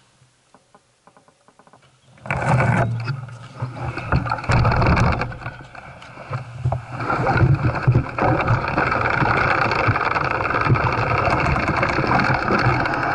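Calibre Bossnut mountain bike rolling over a dirt and gravel trail, heard through a camera mounted on the bike: tyre noise, rattle and wind rumble. It starts about two seconds in, after a near-quiet start with a few faint ticks.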